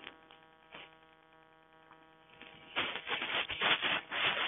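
Faint steady electrical hum, then from just under three seconds in a run of loud, irregular rustling and rubbing noises.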